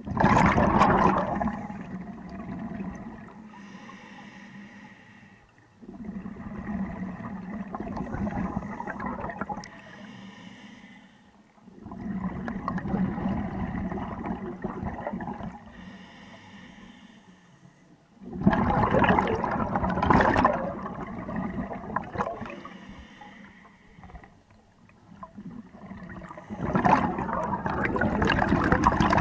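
Scuba regulator breathing underwater: a rush of air on each breath and a burst of bubbling exhaust, repeating about every six seconds, with the loudest bubble bursts at the start, about 18 seconds in, and near the end.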